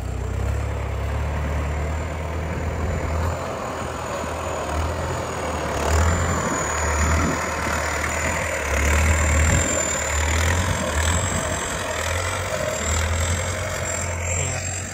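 Kubota M7508 tractor's turbo diesel engine working under load while ploughing, its low engine note rising and falling in pulses. A thin, high, steady turbo whistle sits over it and grows louder about six seconds in.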